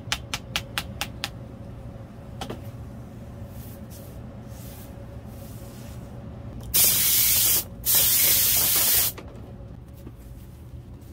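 Wooden mallet tapping quickly on gold leaf laid over fabric, about five taps a second, stopping about a second in. About halfway through come two loud hissing blasts of compressed air from an air blow gun, the second a little longer.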